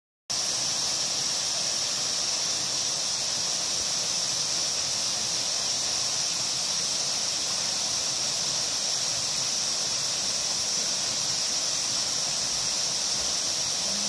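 Steady rush of a waterfall plunging into a pool, with a constant high-pitched whine running over it.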